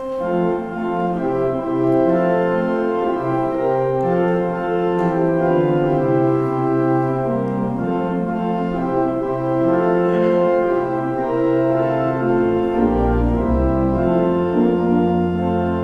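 Organ playing the introduction to a hymn: sustained chords that change about every second, with a deep pedal bass coming in near the end.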